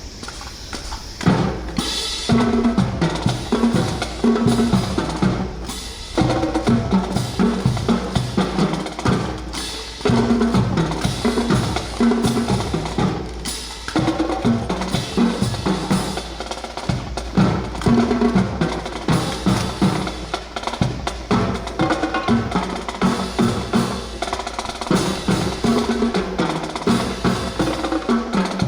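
Drum-led music with snare drum, drum rolls and bass drum in a quick, steady beat.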